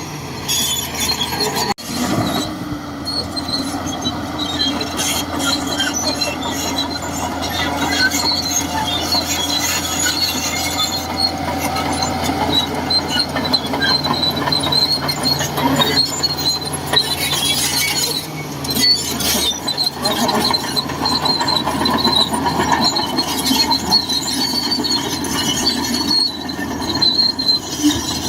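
Shantui DH17C2 crawler bulldozer working: its diesel engine runs steadily while the steel tracks squeal and clank as it moves.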